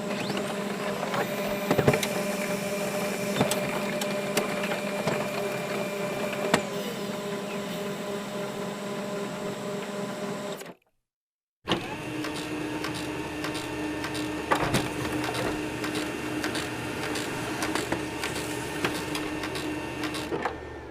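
Laser printer running: a steady motor hum with several steady tones and scattered light clicks. It cuts off abruptly about ten seconds in, starts again about a second later, and stops near the end.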